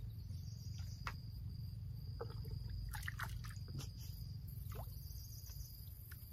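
Pond-side ambience: a steady high insect drone over a low rumble, with a few short drips and small water splashes scattered through.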